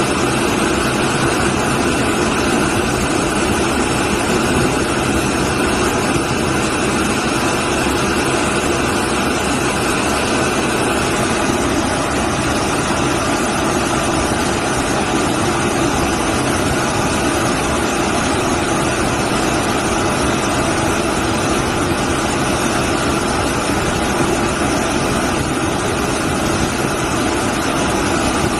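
Washing machine running with a steady, unchanging noise.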